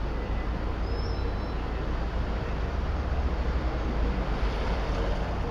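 Road traffic idling in a queue: a steady low rumble of engines with street noise, picked up by a camera mounted on the outside of a vehicle.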